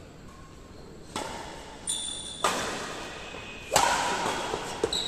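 Badminton rackets striking a shuttlecock in a doubles rally: sharp hits about every second and a quarter, each echoing off the metal walls of a large hall, with a brief high ringing tone about two seconds in.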